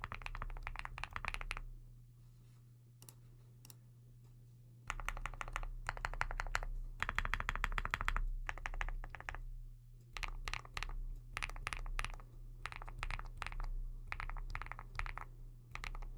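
Typing on a Weikav Nut65 mechanical keyboard with Bsun Maple Sugar linear switches, a poppy, thocky key sound in fast runs of keystrokes. The typing stops about two seconds in, with only a couple of stray keystrokes for about three seconds, then resumes in rapid bursts.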